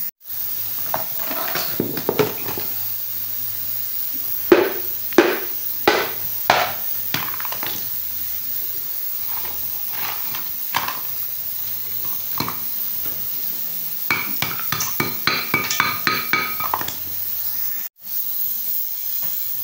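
A fired clay pot crucible being knocked apart with a hammer on a concrete floor to get at the lead button holding gold and silver: a run of about five sharp knocks roughly half a second apart, with scattered smaller knocks and cracks of shards. Near the end come quicker, lighter clinks with a brief ringing, over a steady hiss.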